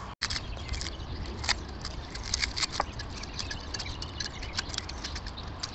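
Dry onion skin being peeled and scraped off with a small kitchen knife: light, irregular papery crackles and ticks.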